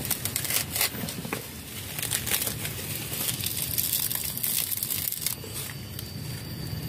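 Dry coconut husk fibre crackling and tearing as it is pulled apart by hand, a dense run of crisp crackles that thins out about five seconds in.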